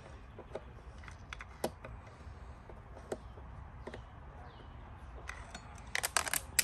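Sparse light clicks and ticks of a hand screwdriver turning a screw into a mobility scooter's plastic frame, with a quick flurry of clatter about six seconds in.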